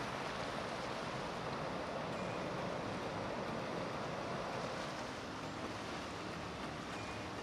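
Steady rushing wash of choppy river water churned by passing motor yachts, mixed with wind, with no distinct engine tone standing out.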